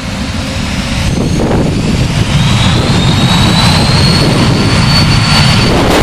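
The twin turbofan engines of a Cessna Citation CJ2+ spooling up to takeoff thrust. They grow steadily louder, with a deep rush of jet exhaust and a high whine that climbs in pitch from a couple of seconds in.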